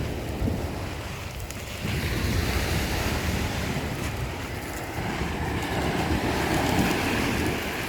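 Black Sea waves breaking and washing on the shore, with wind buffeting the microphone. The surf grows louder about two seconds in and swells again near the end before falling back.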